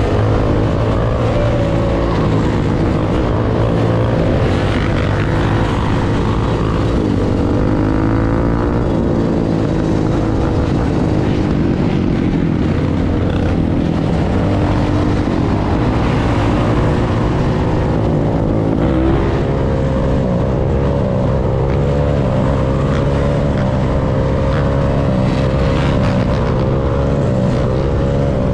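Quad (ATV) engine running under the rider at street speed, its pitch rising and falling with the throttle, mixed with other dirt bike and quad engines in a pack around it and a steady rush of wind noise.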